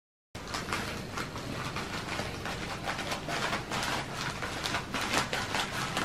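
Scissors snipping through a plastic courier mailer bag, with many quick cuts and the plastic crinkling and rustling, starting abruptly a moment in.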